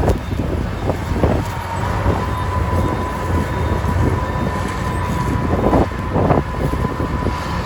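Heavy diesel snow-removal machinery running steadily with a deep rumble, with a steady high whine entering about a second and a half in and a couple of brief louder surges near the end.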